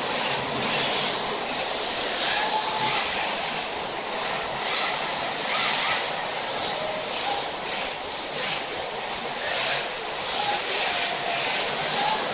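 A pack of rear-wheel-drive RC drift cars sliding through a bend together: a steady high hiss of hard drift tyres skating on the smooth track, swelling and fading every second or so, with short faint squeals and the whine of small electric motors.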